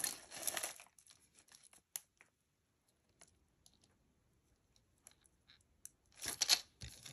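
Crinkling and rustling from a piece of costume jewelry being handled, with scattered faint clicks; the rustling comes in short bursts at the start and again near the end, with little in between.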